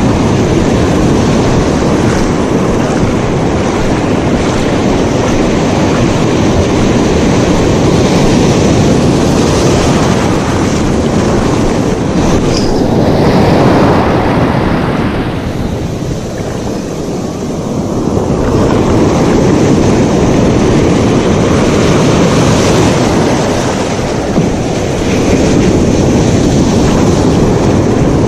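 Ocean surf breaking and washing over a sandy shore, with wind rumbling on the microphone. A loud, steady rush that eases for a couple of seconds past the middle.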